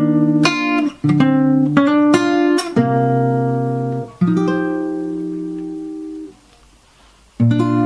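Acoustic guitar playing a slow run of strummed chords. One chord is left ringing and fading for about two seconds, then there is a short pause and a new chord is struck near the end.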